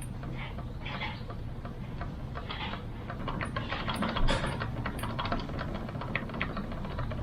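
Ultron Mini electric scooter's rear end creaking, a string of light clicks and ticks with short faint squeaks, its screws and pivots freshly oiled so the squeak is only slight.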